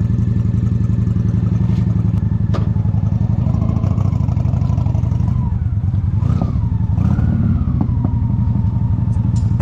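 Custom bobber motorcycle's engine running steadily, out of its first winter lay-up. Its pitch rises and falls a few times in the middle as the throttle is worked.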